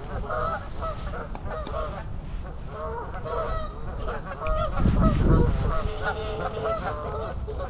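A flock of geese honking, many short calls overlapping one another, with a low rumble about five seconds in.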